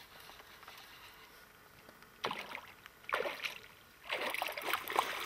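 A hooked trout splashing at the water's surface beside a boat: two short splashes a couple of seconds in, then a longer bout of splashing near the end.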